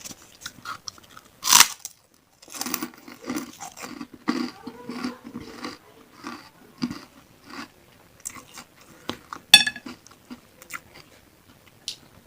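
Close-miked chewing of bakso meatballs and beef tendon bits, an irregular run of chewing and biting sounds. A few sharp clicks stand out, the loudest about one and a half seconds in and again near ten seconds.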